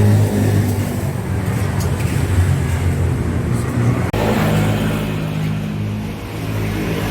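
A steady, loud low drone like a motor vehicle engine running, with an abrupt change in the sound about four seconds in.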